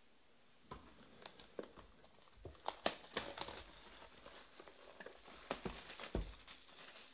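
Plastic shrink wrap being torn and crumpled off a sealed trading-card box: a run of crinkles and crackles starting about a second in, with a dull knock near the end.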